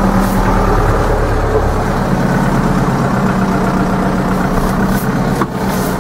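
Zetor 7245 tractor's four-cylinder diesel engine running steadily, heard from inside the cab, with a single sharp click near the end.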